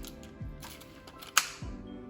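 Background music with a steady beat of deep falling bass thuds. A single sharp clack about a second and a half in is the loudest sound.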